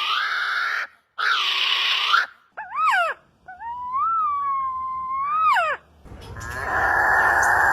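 A series of bird calls: two harsh, rasping calls about a second each, then a brief warbling whistle and a long clear whistled note that bends upward at both ends. About six seconds in, a steady harsh buzzing call begins.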